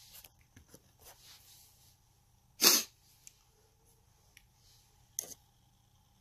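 A man sneezes once, a single sharp burst about halfway through, followed a few seconds later by a fainter short breath sound.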